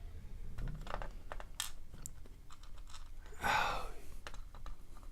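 Small scattered clicks and scratches of pin-tumbler lock pins and parts being handled during disassembly, with a short rush of noise like a breath about three and a half seconds in.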